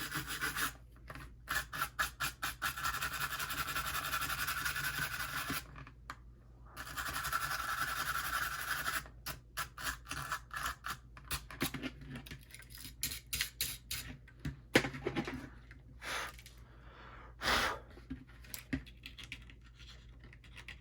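Nylon brush scrubbing corrosion off small metal battery contacts with fast back-and-forth strokes: two longer bouts of rapid scrubbing in the first half, then scattered shorter scratches and taps, with one sharp click a little past the middle.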